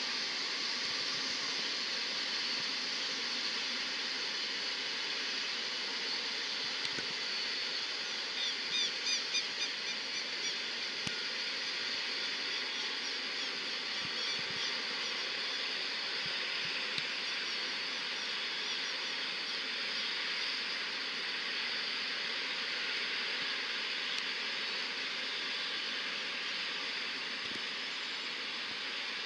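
Steady hiss of oil refinery plant. About eight seconds in comes a quick run of high chirps lasting a second or two, with fainter ones after.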